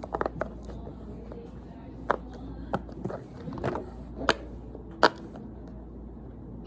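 Silicone push-pop bubbles of an ice cream–shaped poppet fidget being pressed, giving sharp pops at irregular intervals, about seven or eight of them.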